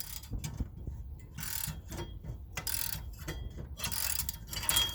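Socket wrench ratcheting in a series of short strokes, about one a second, as a hub-assembly mounting bolt is worked loose.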